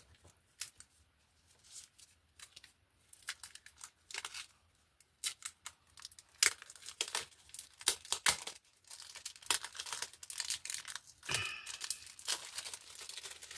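Clear plastic packaging being torn open and crinkled by hand. The sharp crackles are sparse at first and become dense rustling from about five seconds in.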